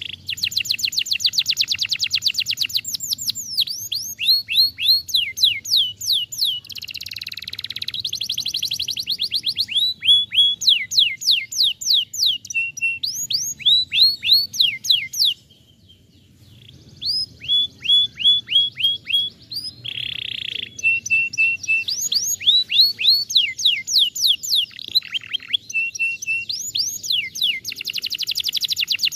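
Domestic canary singing: fast trills of repeated downward-sweeping notes, switching from one trill to the next, with a few harsh buzzy phrases mixed in. It breaks off for about a second and a half midway, then takes the song up again.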